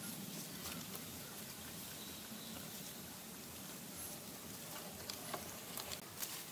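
Faint soft scraping and patting of bare hands smoothing wet mud, with a few small clicks toward the end.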